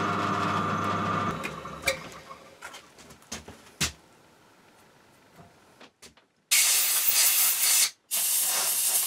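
Bench drill press motor running with a steady hum, then switched off about a second in and running down, followed by a few light clicks and a knock. Near the end come two loud bursts of hiss, each over a second long.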